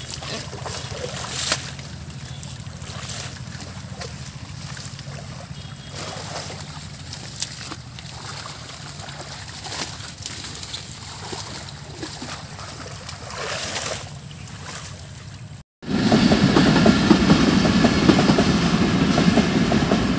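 Shallow pond water sloshing and splashing as hands push through and pull at floating water hyacinth. After a sudden cut near the end, a train passing close by takes over, much louder, with a dense continuous rumble.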